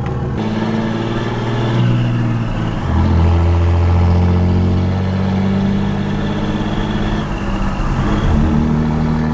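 Pickup truck with a straight-piped exhaust accelerating through the gears of its six-speed manual transmission. The engine note climbs, drops sharply at a shift about three seconds in, holds steady, then changes again near the end.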